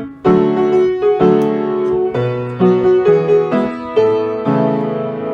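Piano playing a children's song accompaniment: struck chords with a simple melody on top, each note dying away before the next.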